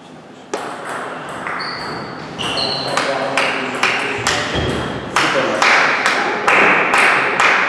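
Table tennis rally: the ball clicks off rubber paddles and the table in quick succession, starting about half a second in and coming faster through the middle. A couple of short high shoe squeaks sound on the wooden floor, and loud player voices come near the end as the point finishes.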